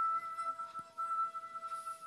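Background music: a single long held note.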